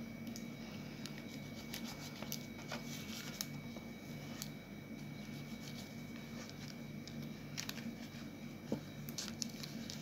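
Small knife cutting through a soft peanut-filled mochi in a paper cup on a metal tray: faint scattered clicks and taps of the blade and the cup's paper, a few sharper ones in the second half, over a steady low hum.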